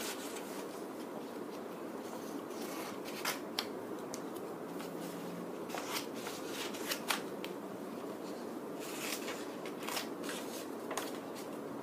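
Scissors cutting paper: scattered short snips and paper rustles over a steady background hiss.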